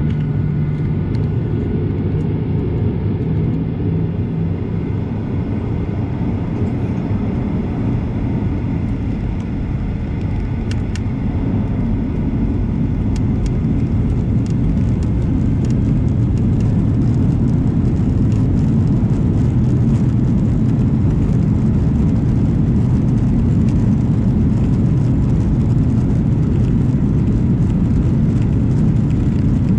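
Boeing 737 jet engines running with a steady low rumble that slowly grows louder about halfway through.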